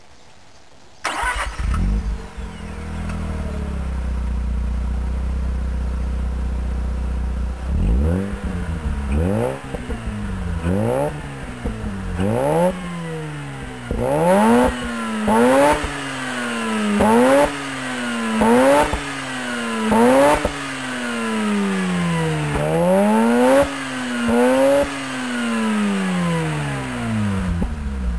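Mazda RX-8 Type RS two-rotor rotary engine heard through an Rmagic tuned exhaust silencer. It starts about a second in and idles, then is blipped again and again, each rev rising and falling in pitch, before settling back to idle near the end. The silencer's glass-wool packing, according to the owner, is not yet worn, so the exhaust sounds as it did when new.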